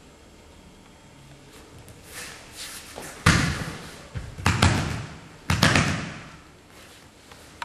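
Several heavy thuds in a large hall as a partner is taken down onto a martial-arts mat: body and hands striking the mat about three, four and five and a half seconds in, the first the loudest.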